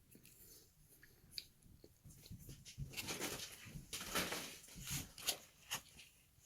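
A small dog sniffing and snuffling close to the microphone: a run of noisy breaths and clicks starting about two seconds in.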